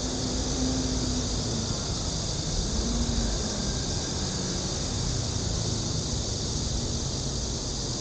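Outdoor summer ambience: a steady, high-pitched insect drone over a low rumble of distant traffic.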